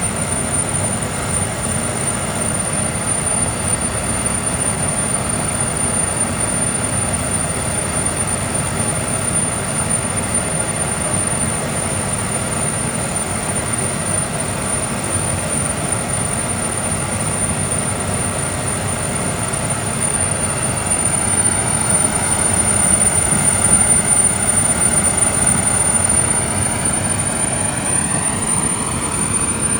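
Yamataha PB-1 gas pilot burner running with its air supply at 30 mbar: a steady rushing burn of flame and air under a constant thin high whine. It grows a little louder about two-thirds of the way through, with faint rising tones near the end.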